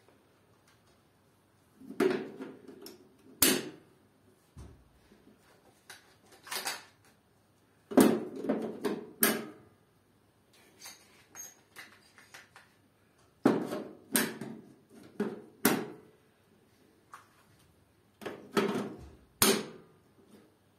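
Plastic modular circuit breakers and relays being set onto a metal DIN rail and pushed together: irregular sharp clicks and knocks in clusters a few seconds apart.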